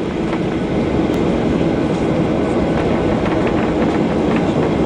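Cabin noise inside a Boeing 737-800 taxiing: a steady rumble of the CFM56 jet engines and the rolling airframe, with faint knocks from the wheels passing over pavement joints.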